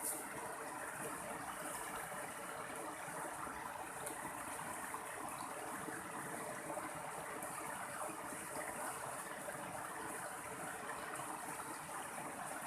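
Mountain stream water flowing and splashing steadily.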